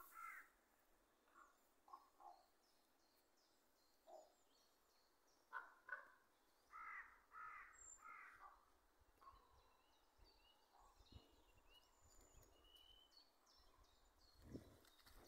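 Faint, distant crows cawing, a scatter of short calls that come thickest in the first half, with small birds twittering faintly throughout. A soft thump comes near the end.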